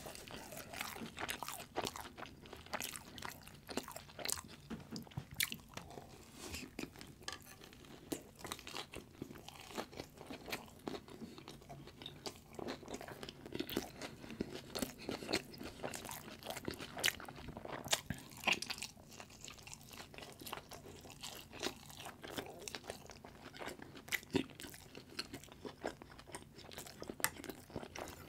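Close-miked chewing of a fried Korean potato hot dog, with wet mouth sounds and a steady run of irregular crunches.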